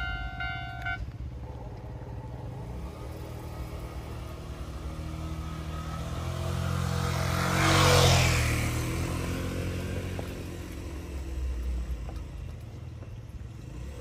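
A railway level-crossing alarm, ringing in an even repeating pattern, cuts off about a second in. Then a road vehicle passes close by, loudest about midway, over a low rumble.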